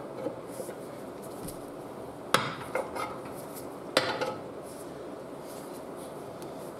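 Metal hand tools clinking against the steel crankshaft straightener: two sharp metallic clinks about a second and a half apart, each followed by a few lighter taps.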